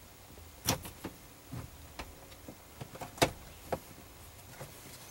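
Scattered clicks and light knocks of the steering column's plastic cover pieces being handled and fitted, with two louder knocks, one under a second in and one about three seconds in.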